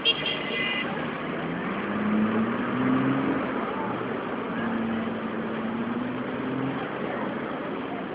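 City street traffic: motor vehicle engines running and speeding up as they pass, over a steady hum of traffic. A short, high-pitched beep with a sharp knock sounds right at the start.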